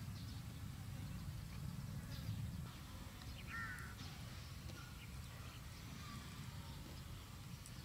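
Outdoor ambience: a steady low rumble with a few short, high animal calls, the clearest about three and a half seconds in.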